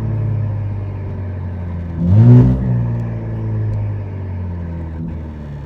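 Twin-turbo V6 of a tuned Infiniti Q60 driving with its exhaust valves open, heard from the cabin. The engine runs at a steady low drone, then about two seconds in revs up sharply in a short, loud burst before settling back.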